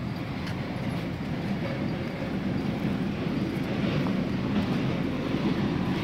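Steady low rumbling noise from a handheld camera carried along on a walk, with a few faint ticks.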